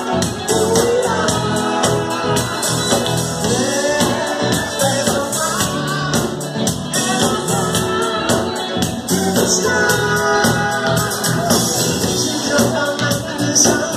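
Live band playing a song, a lead singer over a steady drum beat.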